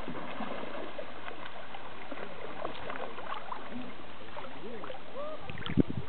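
Water sloshing and splashing as horses wade through a shallow river, a steady wash of water noise. A brief low thump on the microphone comes near the end.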